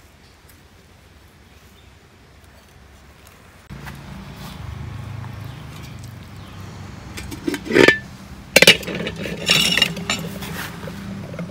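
Aluminium cooking pot clanking on a stone slab while it is handled: two loud metallic knocks about eight seconds in, followed by a short rattle. A steady low hum runs underneath from about four seconds in.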